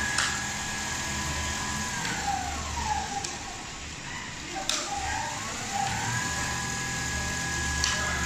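Richpeace automatic CNC sewing machine running, its drive motors whining steadily, the whine gliding down about two seconds in and climbing back up around five to six seconds as the machine slows and speeds up, over a low hum. A few sharp clicks, about four.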